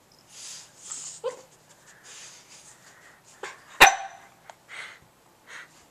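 Boston Terrier huffing in short breathy bursts, with one short, sharp bark a little under four seconds in, the loudest sound.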